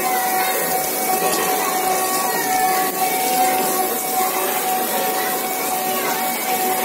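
Water spraying steadily from several mounted fire hoses against a wall, with the steady hum of a water pump beneath it.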